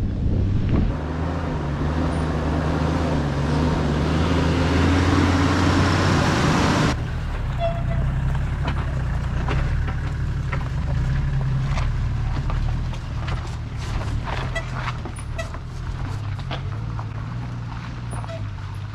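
Toyota LandCruiser Troop Carrier's engine running as it drives a rough 4WD track, a steady low hum. A loud hiss sits over it until it cuts off suddenly about seven seconds in, after which light clicks and knocks come through.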